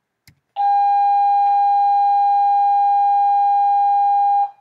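A single steady electronic tone of fixed pitch, like a test tone or long beep. It comes on abruptly after a faint click, holds at an even level for about four seconds, then cuts off suddenly.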